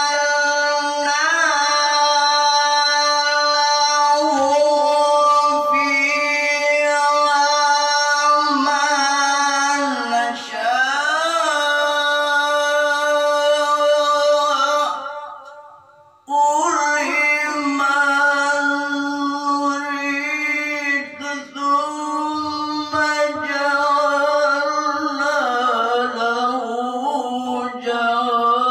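A male qari's voice reciting the Quran in the melodic tilawah style, drawing out long, ornamented held notes. It breaks off for breath about fifteen seconds in and resumes about a second later.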